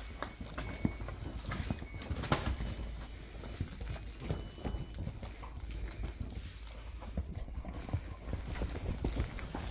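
Dachshunds chewing and mouthing plush dog toys on a couch: irregular soft clicks, knocks and rustles, with a few short high squeaks.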